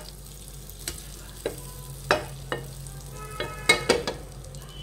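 Butter sizzling as it melts and bubbles in a nonstick frying pan, with several light clicks and scrapes against the pan, the loudest a few near the end.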